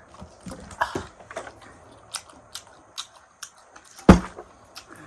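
Close-up eating: biting and chewing food, with scattered small crunches and clicks, and one loud thump about four seconds in.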